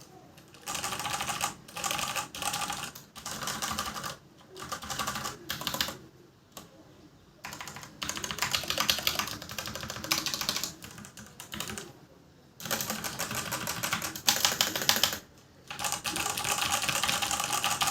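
Digital Alliance Meca 6 Plus mechanical keyboard with Outemu Brown tactile switches being typed on: fast runs of key clacks in bursts, broken by brief pauses of under a second.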